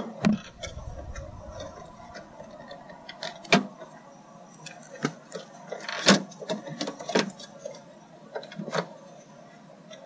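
Plastic interior door handle of a 1999 Toyota Sienna clicking and knocking against the bare door's sheet metal as it is pushed and wiggled in a test fit. The clicks come irregularly, with the two loudest knocks about three and a half and six seconds in.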